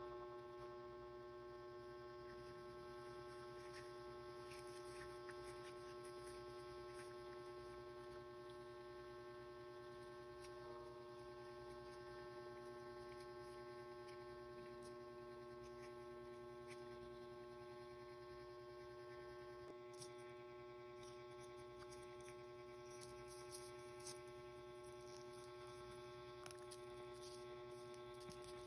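A steady, faint electrical hum made of several fixed tones, with a few faint small clicks now and then.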